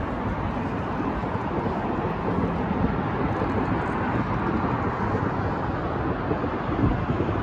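Steady rumble of city traffic on a wide multi-lane avenue, heard from high above.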